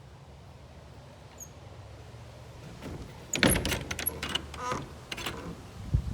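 Storage shed door being opened: a clattering, scraping rattle starting about three seconds in, with a short squeak.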